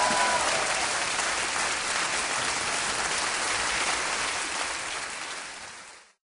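Applause on the soundtrack, steady at first, then fading out over the last couple of seconds and cutting to a brief silence just before the end.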